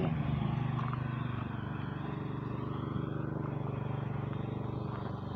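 Small engine running steadily at an even pitch, a low hum with a fast regular pulse.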